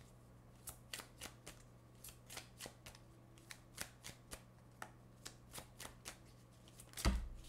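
Oracle cards being shuffled by hand, the cards flicking against each other in a run of soft clicks about three a second, with one louder thump near the end.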